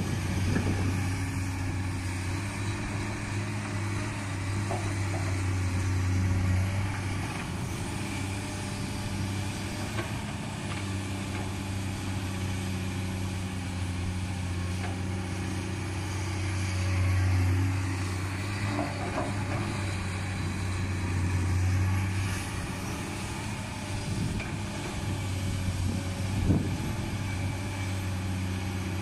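Komatsu PC200-8 excavator's diesel engine running steadily, swelling in loudness a few times as it works under load. A single sharp knock about three quarters of the way through.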